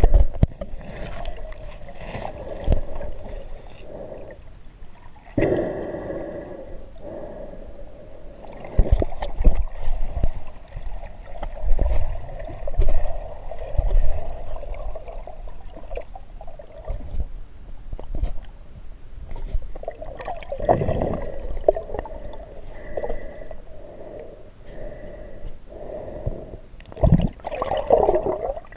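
Muffled underwater sound picked up through a GoPro Hero's waterproof housing as it is moved through a river: water gurgling and rushing past the housing, with irregular knocks and bumps, and a louder rush of water near the end.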